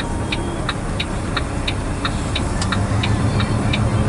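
Truck engine running with a steady low hum, over a regular light clicking about three times a second.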